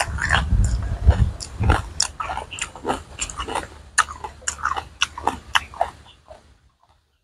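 Close-miked chewing of crisp raw vegetables: a rapid run of wet crunches and crackles that thins out and fades near the end. A low rumble sits under the first two seconds.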